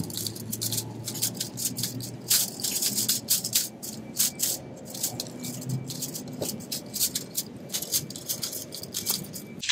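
A steel chain link wire being threaded through the joined mesh of two chain link fence sections, rattling and clinking against the wire in quick, irregular clicks.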